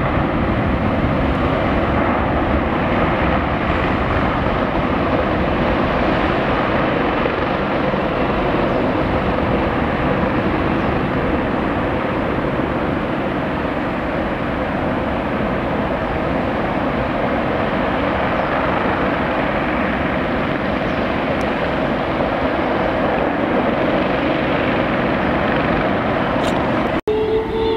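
Jet engines of a twin-engine wide-body airliner at takeoff thrust: a steady rushing noise as it rolls, lifts off and climbs away. The sound cuts off suddenly near the end.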